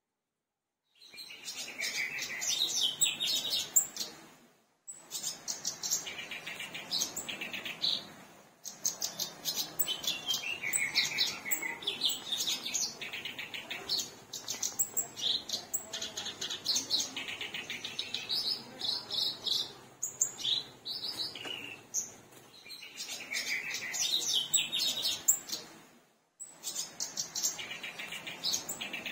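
Black-browed reed warbler singing a rapid, varied, chattering song in long runs of quick notes, with a few short breaks.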